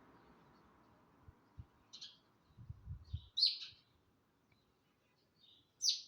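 Sparrows chirping: three short, high chirps about two, three and a half and six seconds in, the last two the loudest. A few low bumps come just before the second chirp.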